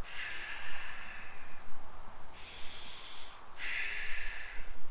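A person breathing slowly and deeply while holding a yoga stretch: three audible breaths, a long one at the start, another around the middle and a third near the end.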